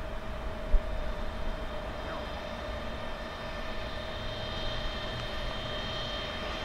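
Electric locomotive running light, a steady electric whine with higher whining tones growing louder from about halfway through, and a low hum joining them. A single sharp knock about a second in.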